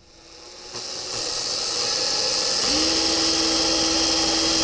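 An electric power tool running with a loud, hissing whir that builds over the first two seconds, joined by a steady hum about two and a half seconds in.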